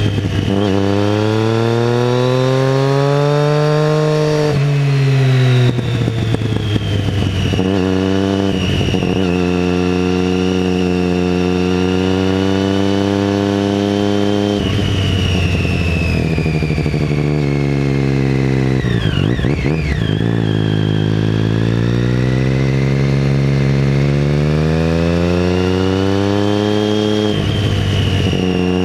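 2012 Triumph Street Triple 675R's inline-three engine through a MASS aftermarket exhaust, pulling through the gears: its note climbs in pitch, breaks off briefly and picks up lower at each quickshifted upshift, and falls away when the throttle is closed for a stretch in the middle.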